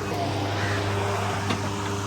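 Steady low mechanical hum, with a single sharp click about one and a half seconds in.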